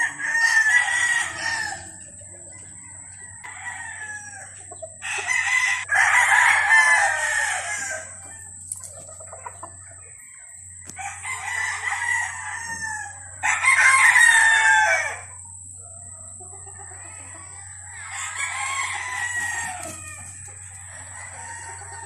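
Several gamecock roosters crowing in turn, about five or six crows of one to three seconds each from more than one bird, some overlapping. The loudest crows come about six and fourteen seconds in.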